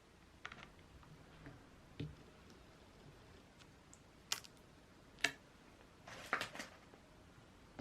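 Scattered light clicks and taps of small objects being handled, irregular rather than rhythmic, with the sharpest tap about five seconds in and a short cluster of taps a second later.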